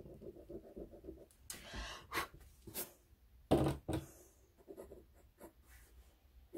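Pencil scratching on watercolour paper in short, irregular strokes, with one louder stroke about three and a half seconds in.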